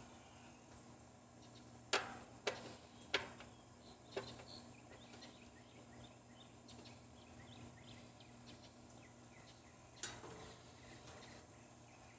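A few sharp metallic clicks and taps as a nut driver works the screw of an air-conditioner capacitor's metal holder strap: three close together about two to three seconds in, one at about four seconds and one more near the end. A faint steady low hum lies underneath.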